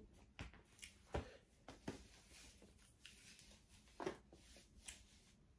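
Near silence, broken by a few faint, short rustles and clicks as a wig and wig cap are handled, about five in all, the clearest about one second and four seconds in.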